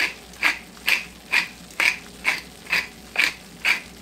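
Wooden pepper mill grinding black pepper, one short grind with each twist, about two a second in an even rhythm.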